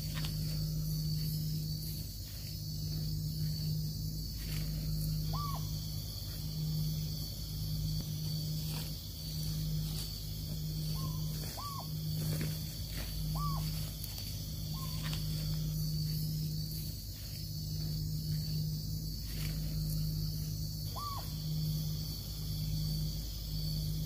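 Night-time tropical forest insect chorus, with a steady high buzz throughout. Under it a low hum pulses on and off roughly once a second, and a short rising call sounds about five times.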